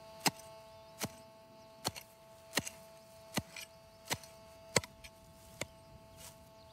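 A small hand pick chopping into turf and soil in a steady rhythm, about nine sharp strikes roughly one every three quarters of a second, the last ones fainter. A metal detector's steady electronic tone sounds faintly underneath.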